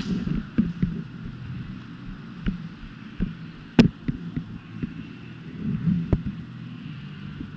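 Footsteps and gear jostling close to a body-worn camera as an airsoft player moves on foot: irregular dull thumps over a steady low hum, with one sharp click about four seconds in.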